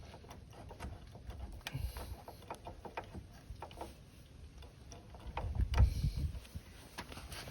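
Clicks, taps and clunks of metal parts being handled while a Honda Monkey 125's rear wheel and brake caliper are worked back into place, with a louder run of knocks and thuds about six seconds in.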